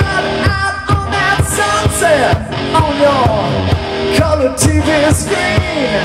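Live rock band playing: two electric guitars with bending, gliding notes over a steady drum beat.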